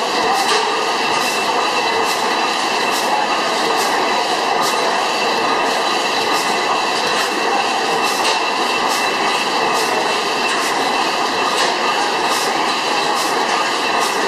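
300 hp Miller Improved stationary gas engine running steadily, a dense mechanical clatter from its moving parts with sharp regular clicks about twice a second.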